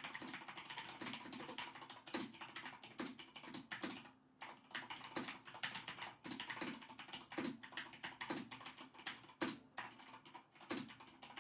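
Typing on a Corsair K95 Platinum XT mechanical keyboard with Cherry MX Speed linear switches: a fast, steady run of key clacks with a brief lull about four seconds in. It is picked up by a microphone about 200 mm in front of the keyboard.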